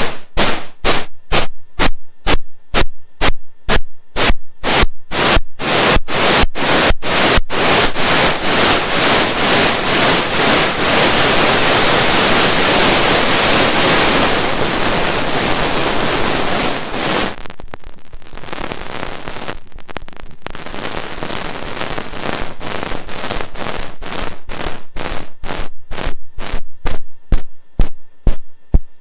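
SODApressed Eurorack noise percussion module firing noise hits about three a second. The hits lengthen until they run together into a steady static hiss. After a few seconds of quieter, darker noise, short sharp hits return near the end.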